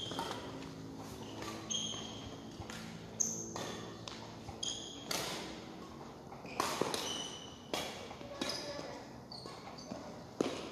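Badminton rally: a shuttlecock struck back and forth with rackets, sharp hits at irregular intervals mixed with footfalls and short high squeaks of shoes on the court floor, echoing in a large hall.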